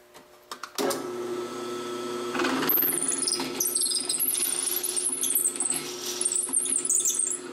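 A drill press switched on about a second in and running with a steady hum. From about two and a half seconds in, a pen barrel trimmer in the chuck cuts into the end of a pen blank, adding a high, wavering scraping whine.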